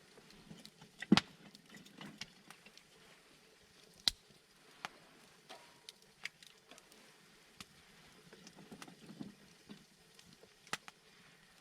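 Scattered sharp clicks and knocks over a faint background, the loudest about a second in and another about four seconds in.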